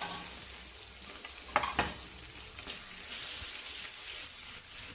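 Chicken breast, tomatoes and garlic sizzling in butter in a frying pan while being stirred, with two sharp knocks about a second and a half in.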